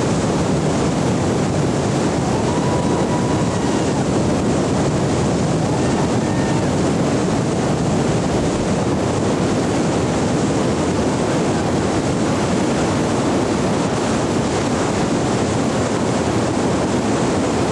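Steady rush of a large whitewater river rapid, churning water with no let-up.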